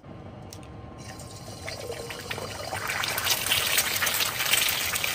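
An egg frying in hot oil in a wok, sizzling with crackling spatters that grow louder from about a second in.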